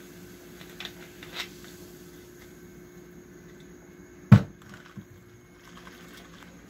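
Carbonated soda fizzing over ice in plastic cups, with a few soft crackles, and a single loud thump about four seconds in.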